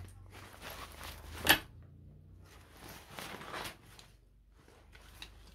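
Fabric and packaging rustling as a day backpack is handled, with one sharp click about one and a half seconds in.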